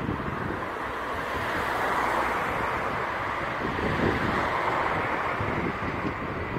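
A car driving along the road with a rushing tyre noise that swells to a peak about four seconds in and then eases, over gusts of gale-force wind buffeting the microphone.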